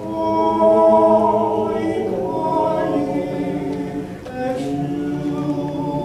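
Male vocal ensemble singing a Taiwanese-language hymn a cappella in close harmony. A new phrase starts at the beginning, and there is a short breath about four seconds in before the next phrase.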